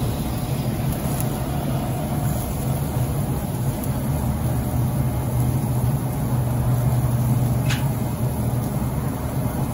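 Weber SmokeFire pellet grill running: a steady low hum from its combustion fan. A light click about eight seconds in.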